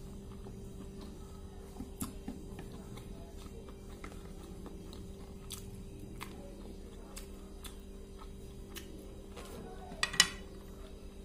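Someone chewing and eating steamed vegetable momos, with scattered faint mouth clicks. A couple of sharp clicks about ten seconds in are the loudest sounds, over a steady low hum.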